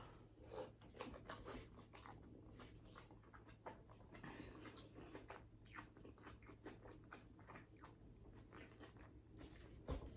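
Faint close-miked chewing and mouth sounds of a person eating, a string of small wet clicks and smacks.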